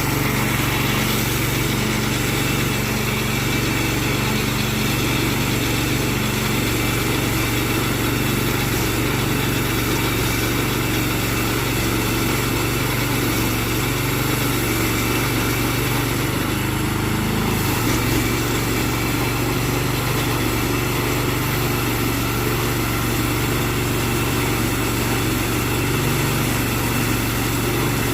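Small gasoline engine of a portable band sawmill running steadily, with a brief shift in its note about two-thirds of the way through.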